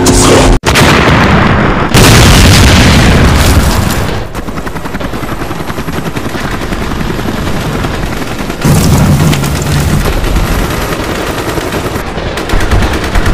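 Rapid automatic machine-gun fire in long sustained bursts, edited together: loudest from about two to four seconds in and again from about nine seconds on, quieter in between, with a brief cut under a second in.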